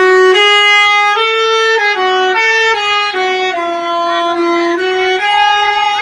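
Basuri horn, a multi-trumpet air horn fitted to Indonesian trucks, playing a melody. Its reedy held notes step up and down about every half second, often two at a time.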